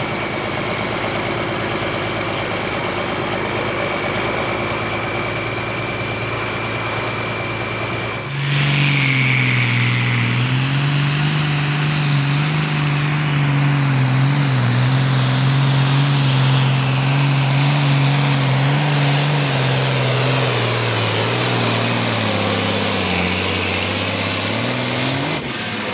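Super Pro Farm pulling tractors' turbocharged diesel engines running flat out under load on the pull, with a steady high whistle over the engine noise. About eight seconds in the sound cuts to another pull: a loud, steady engine note that sags slightly near the end and rises again before stopping.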